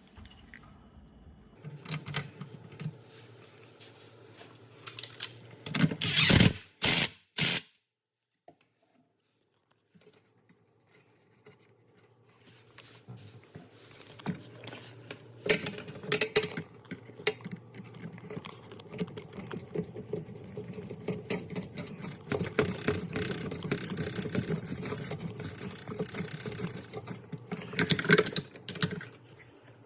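Dishwasher clattering: a few loud sharp knocks, then after a brief quiet a steady low hum with fast rattling clicks.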